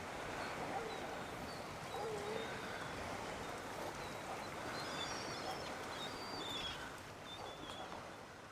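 Steady wind and water noise with faint bird calls: a short lower call about two seconds in, and several brief high chirps in the second half. The noise drops away near the end.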